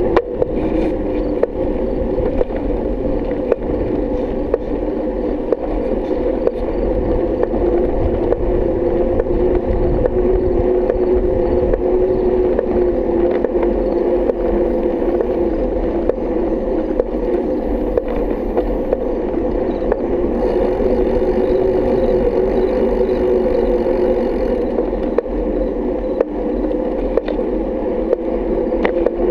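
Steady hum of riding along a paved lane, with a wavering mid-low tone and occasional light clicks and knocks from the ride.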